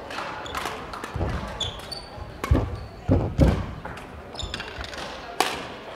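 Badminton singles rally: sharp racket strikes on the shuttlecock a few times, squeaking shoes on the hall's sports floor, and heavy thudding footsteps as the players lunge.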